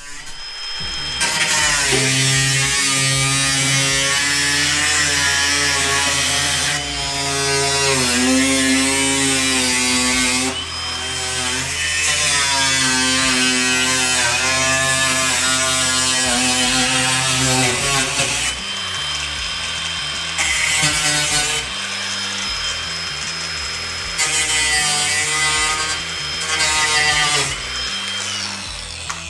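Power grinder cutting rusted car-body sheet steel in several long runs. Its whine dips and recovers in pitch as the cut loads it.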